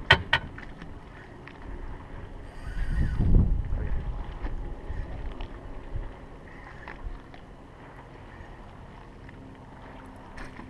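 Sounds on a small fishing boat on the water: a steady low background with two sharp knocks right at the start and a loud low rumble of wind on the microphone about three seconds in.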